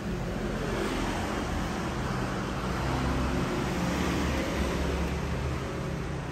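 Steady background noise with a low rumble and hiss, like traffic or room noise.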